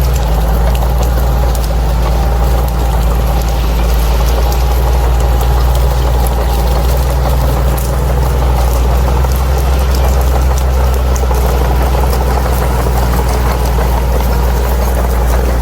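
Crawler bulldozer's diesel engine running steadily with a deep, even drone.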